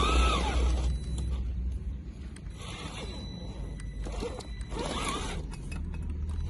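A 1/10-scale RC pickup truck's small electric motor and gears whining, rising and falling in pitch in short surges: one at the start and another about five seconds in, over a low rumble.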